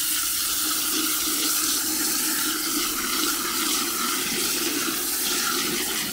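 A steady stream of running water rinsing out an aluminum Afghan Kazan pressure cooker.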